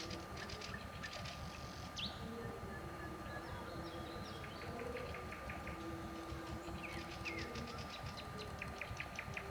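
Nightingale singing: fast repeated rattling phrases broken by sharp whistled notes, with a dove cooing low underneath over a steady low rumble.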